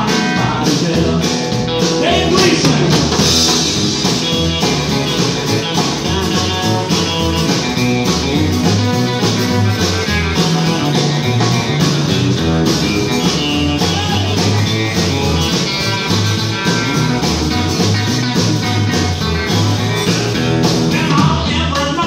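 Live country band playing an uptempo number: electric guitar, strummed acoustic guitar, electric bass and drums, the electric guitar taking a lead break.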